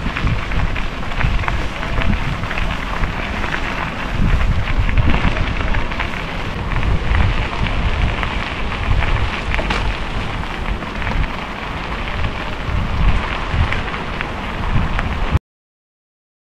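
Bicycle tyres rolling over a gravel path, a steady crunch with many small ticks from the stones, under a heavy rumble of wind on the microphone. It cuts off suddenly about a second before the end.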